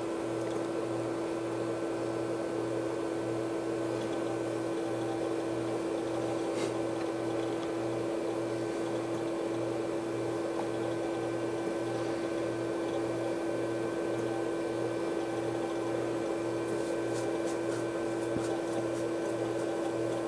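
Steady whir and hum of a running desktop computer, an Amiga 4000 loading software, with a constant tone, a low throb pulsing evenly, and faint rapid ticking near the end.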